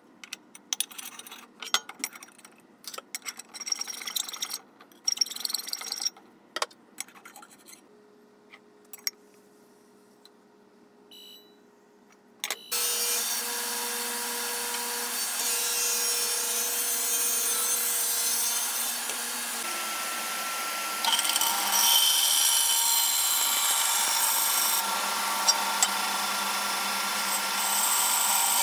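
Clicks and knocks of aluminium stock being handled and set up, then about halfway through a power saw starts suddenly and runs steadily, cutting through a thick aluminium block. From about two-thirds of the way in it gets louder, with high squeals from the blade in the metal.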